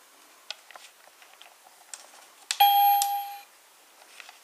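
Chuggington Interactive Chugger Wash toy's electronic sound effect as its wash starts: a few faint plastic clicks as the front button is pressed, then a single loud steady beep-like tone lasting under a second, about two and a half seconds in.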